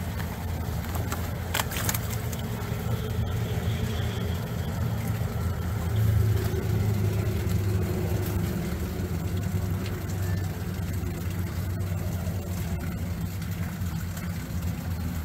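An engine idling steadily with a low hum, with a couple of sharp knocks about a second and a half in.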